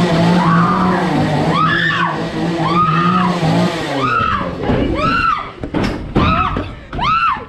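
Repeated high-pitched screams, short rising-and-falling shrieks about once a second, over a steady low hum that stops a little before halfway. A few sharp knocks come near the end.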